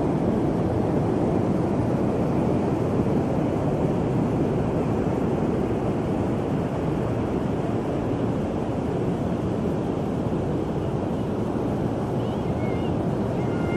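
Steady rush of ocean surf breaking on the beach, mixed with wind on the microphone. A gull calls faintly a few times near the end.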